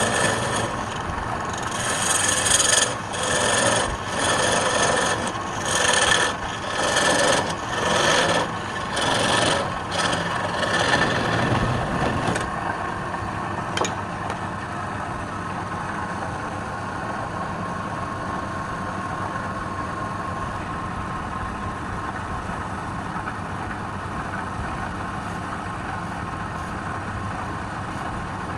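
Wood lathe running, with a tool or abrasive rubbed against the spinning wood in strokes about once a second for the first twelve seconds. After that the lathe runs on alone with a steady hum.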